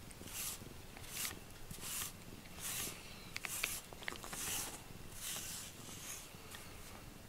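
Brush strokes through a cat's fur: a soft swish repeating about once every 0.8 seconds as it grooms the coat. A few small clicks come midway.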